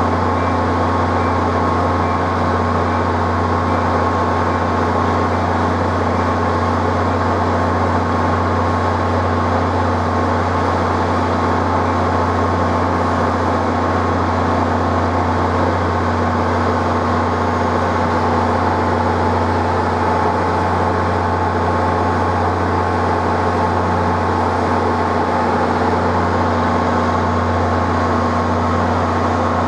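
Steady low mechanical drone holding one even pitch, with a constant hum under a haze of noise.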